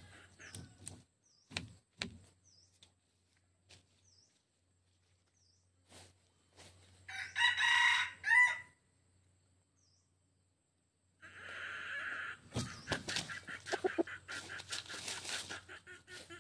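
A red junglefowl decoy rooster crows once, a short crow of under two seconds that breaks off with a falling note. After that come clucks and rustling and scratching in dry leaves.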